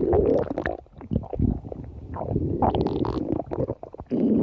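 Stomach growling: long, gurgling rumbles that rise and fall unevenly, with brief lulls about a second in and near the end.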